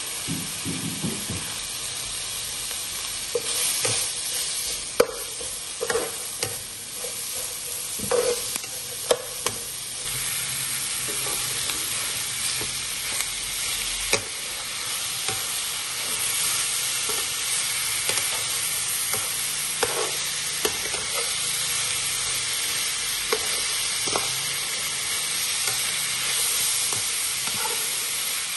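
Lemongrass, chillies, garlic and sliced beef sizzling in oil in a frying pan, with a slotted metal spatula stirring and scraping, clinking sharply against the pan many times.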